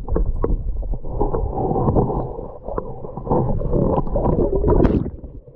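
Muffled underwater gurgling and rumbling of water moving around a submerged camera, with scattered small clicks and bubble pops; it fades near the end.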